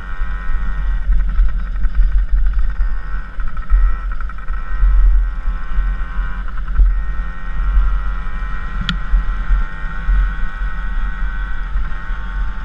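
Dirt bike engine running steadily under way, heard from a helmet-mounted camera with heavy wind buffeting on the microphone. A single sharp tick about nine seconds in.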